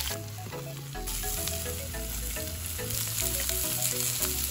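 Food sizzling and frying in a hot pan: a steady, dense hiss. Background music with a stepping bass line plays underneath.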